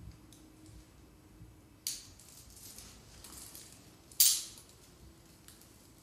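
Steel ankle shackles being fastened on a person's ankles: two sharp metal clacks about two seconds apart, the second louder, with light chain jingling between.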